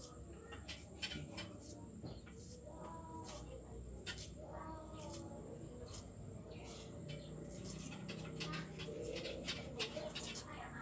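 Light, irregular knife clicks as shallots are sliced by hand, with birds calling in the background.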